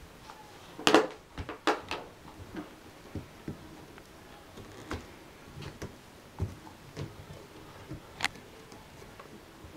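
Irregular small knocks, taps and rustles from five-week-old puppies playing with a cardboard box, a cardboard tube and toys. The loudest cluster of knocks comes about a second in, and there is a sharp click near the end.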